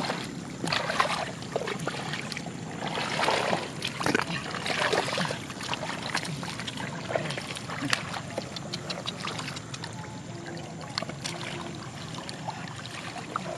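Shallow muddy water sloshing and trickling in uneven swells, with scattered small clicks and splashes.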